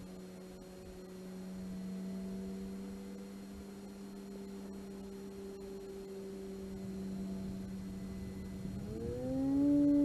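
Electric motor and propeller of an E-flite Carbon-Z Cessna 150 RC plane droning steadily in flight, then rising in pitch and getting louder about nine seconds in as the throttle is pushed up.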